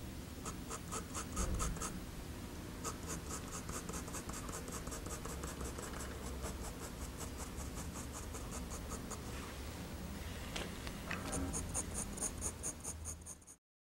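2H graphite pencil hatching on drawing paper: quick, evenly spaced strokes drawn in one direction, about five or six a second. A short pause comes past the middle, then another run of strokes before the sound cuts off abruptly.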